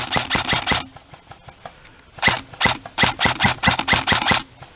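Airsoft gun firing rapid single shots, about six a second, in two strings: a few shots at the start, then a longer string of about a dozen from about two seconds in.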